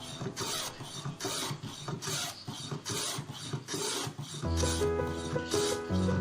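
Hand rasping on wood: repeated, even back-and-forth scraping strokes. Background music with low sustained notes comes in about two-thirds of the way through.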